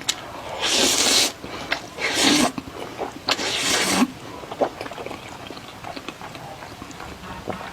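Three loud, breathy slurps of a person eating tomato pasta, each about half a second long, followed by quieter chewing with small wet clicks.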